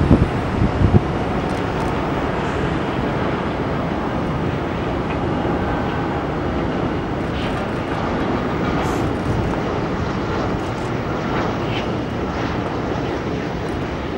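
Jet engines of a Hong Kong Airlines Airbus A330 on final approach with gear down: a steady rushing drone. There are a few low buffets of wind on the microphone in the first second.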